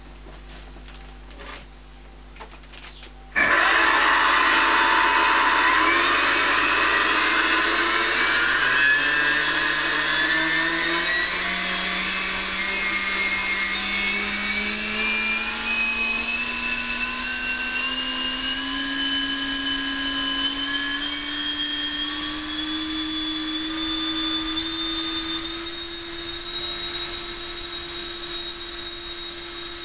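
Electric ducted fan (Dynamax fan unit driven by a Neu 1527 brushless motor) starting abruptly about three seconds in, then spooling up under throttle on a static thrust test: a loud rushing whine whose pitch climbs steadily and levels off near the end. Faint ticks come before it starts.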